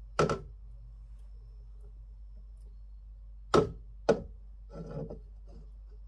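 Three sharp knocks, one just after the start and two close together about three and a half seconds in, then a softer scraping rustle, over a low steady hum.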